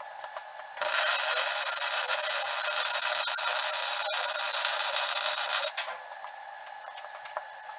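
Arc welding Hardox 450 steel to A36 steel on a loader bucket: the arc's steady crackling hiss starts about a second in and stops near six seconds.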